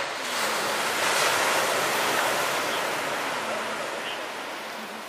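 Sea surf breaking on the shore: one wash of wave noise that swells in under a second and slowly fades away.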